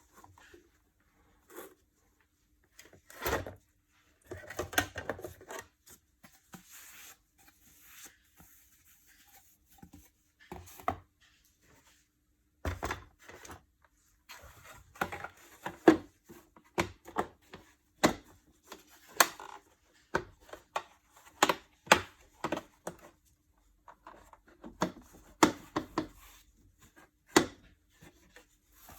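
Irregular clicks and knocks of parts of an Electrolux Pure D8.2 vacuum cleaner being handled and worked on by hand, with no motor running.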